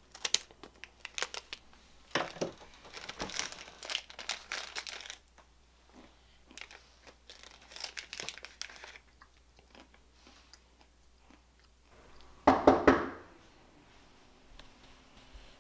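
Plastic snack bag crinkling as it is cut open with scissors and handled, with crunching sounds. About twelve seconds in, three loud knocks come in quick succession.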